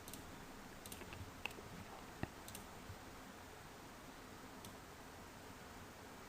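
Faint, irregular clicks of a computer mouse button, several in the first three seconds and one more later, as anchor points are placed while tracing with Photoshop's pen tool.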